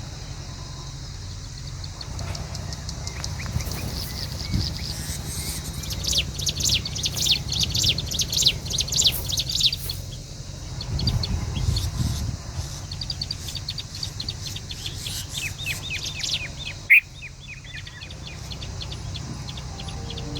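Birds chirping in fast runs of short, high notes. Two long runs come about six and twelve seconds in, over a steady low rumble, with a single sharp click near the end.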